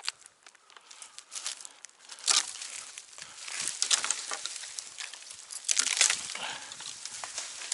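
Irregular rustling and crackling of twigs and foliage, with a few sharper snaps about two, four and six seconds in. No saw is running.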